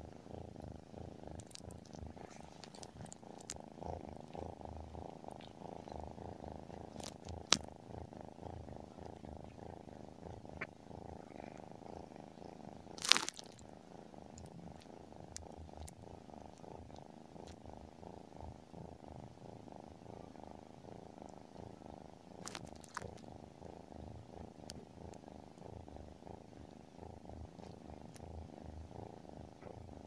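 Tabby kitten purring while it dozes, a steady, fast, even rumble. A few sharp clicks cut in, the loudest about halfway through.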